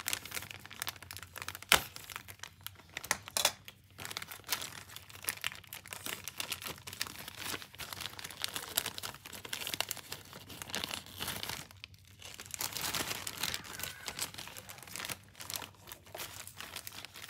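Clear plastic packaging sleeve crinkling and rustling as it is pulled open and slid off a digital caliper, with a sharp click about two seconds in.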